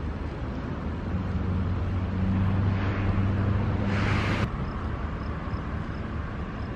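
Vehicle engine running with a steady low hum, a little stronger in the middle. A brief rushing hiss builds about four seconds in and cuts off abruptly.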